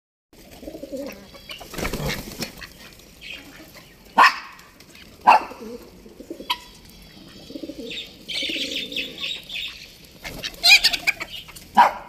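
Mixed flock of chickens, fantail pigeons and guinea fowl feeding on scattered grain. A few short, sharp bird calls about four, five and six seconds in, softer calling and wings flapping between, and more calls near the end.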